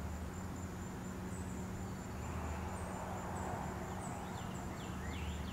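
Quiet woodland ambience: insects, crickets by their sound, trilling steadily at a high pitch over a low steady hum, with a few faint short chirps in the second half.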